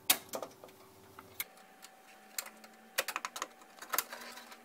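Scattered sharp clicks and light knocks of an expansion card's metal bracket being worked into its slot in a desktop computer case, a handful over a few seconds with the loudest just after the start.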